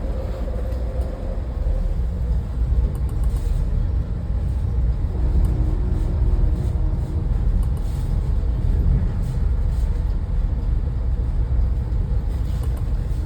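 Steady low rumble of a motor vehicle on the move, engine and road noise with no clear changes in pace.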